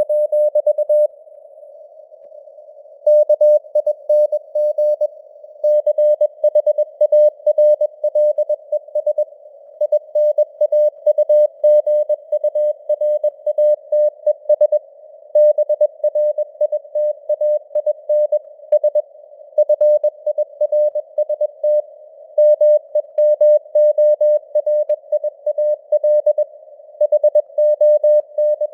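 Morse code at 21 words per minute: a single tone of about 600 Hz keyed on and off in dots and dashes. It sits in simulated radio noise filtered to a narrow band around the tone, with a pause of about two seconds shortly after the start.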